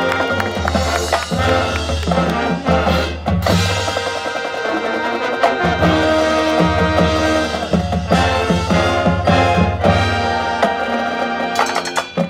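Marching band playing its competition field show: massed brass over drums and front-ensemble percussion, with a strong low bass line underneath.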